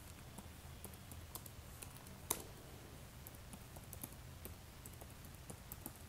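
Computer keyboard typing: scattered key clicks, one of them much louder about two seconds in, over a faint low hum.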